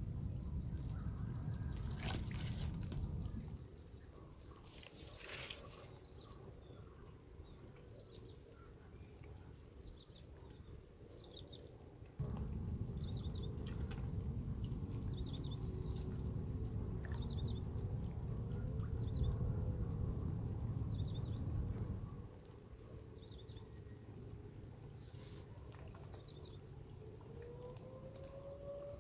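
Outdoor ambience by a canal: wind buffeting the microphone, with a deep rumble in two long stretches that start and stop abruptly. In between come faint short bird chirps and a couple of sharp clicks.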